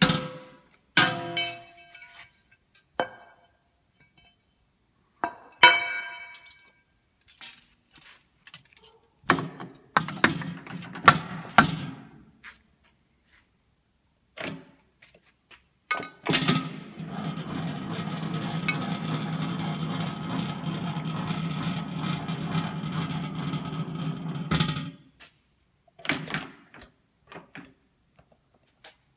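Metal clinks and clunks as aluminium attachment parts and the speed-selector lever of a Hobart H600 planetary mixer are handled, some ringing briefly. Then the mixer's motor and gearbox run steadily for about eight seconds and stop.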